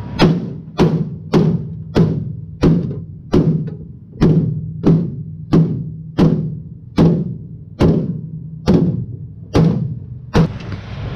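Hammer blows on the car's sheet-metal transmission tunnel: about fifteen even strikes, a little under two a second, each ringing briefly. The tunnel is being beaten out for clearance where the transmission had been hitting it.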